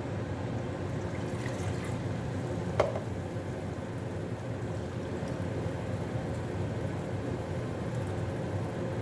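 Pan of food cooking on the stove with liquid added: a steady low noise, with one sharp clink of a utensil on the pan about three seconds in.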